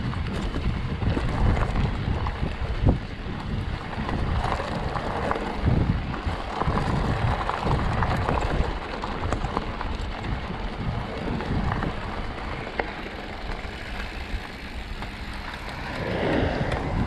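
Wind rumbling on the microphone of a mountain bike riding a dirt trail, with tyre noise and frequent knocks and rattles from the bike over rough ground.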